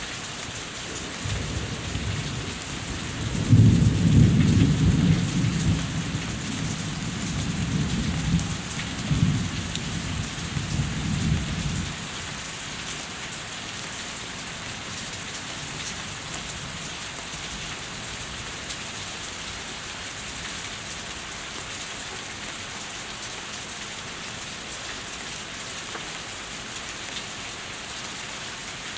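Steady rain falling off a house, with a long rolling rumble of thunder through the first part, loudest a few seconds in, which fades and stops to leave the rain alone.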